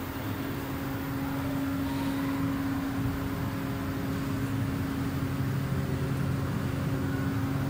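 Steady low hum of running machinery: a constant drone that holds one pitch, over an even rushing noise.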